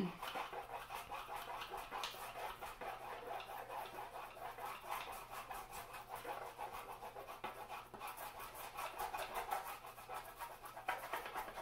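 Stockmar beeswax stick crayon rubbed on its side back and forth across paper, a steady run of quick, even scratchy strokes as a broad area is coloured in.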